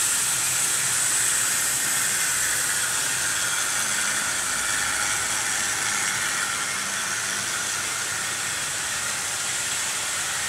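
Several 00 gauge model trains running on the layout at once: a steady hiss and whir from their electric motors and wheels on the rails.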